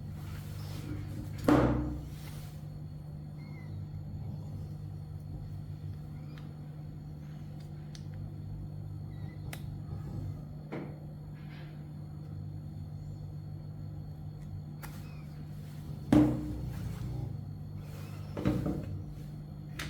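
Three sharp knocks, one about a second and a half in and two near the end, over a steady low hum.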